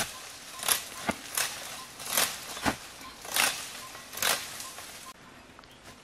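Dry leaves, grass and palm fronds crunching and rustling in about eight short, irregular bursts, stopping abruptly about five seconds in.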